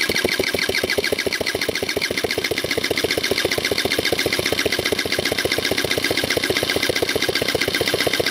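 Electric starter cranking a 1994 moped engine with the spark plug out and a compression gauge fitted, in a fast, even rhythm of compression strokes. The engine never fires; the compression is strong, over 12 bar on the gauge.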